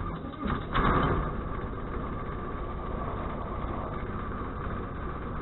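Ultralight aircraft engine being started: it turns over and catches about a second in with a brief surge. It then settles into a steady idle.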